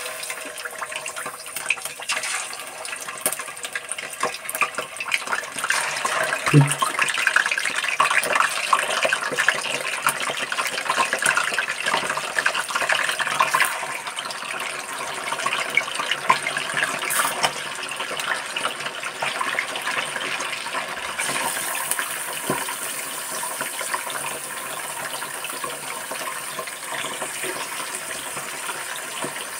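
Pieces of fish frying in hot oil in a steel kadai, a steady dense sizzle full of fine crackles and spits. One soft knock about six and a half seconds in.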